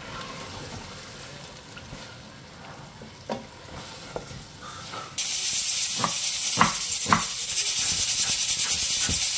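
Wooden spoon stirring thick masala gravy in a steel pressure cooker, with a faint sizzle. About five seconds in, a loud steady hiss starts suddenly. Over it a knife cuts three times through potato onto a plastic cutting board.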